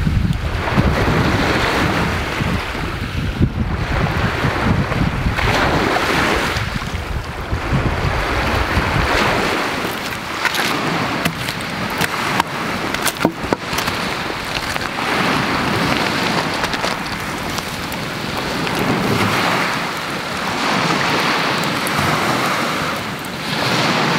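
Lake Superior waves washing onto a stony beach, swelling and falling every few seconds, with wind rumbling on the microphone for the first several seconds. From about ten seconds in, a wood campfire gives a few sharp crackles and pops.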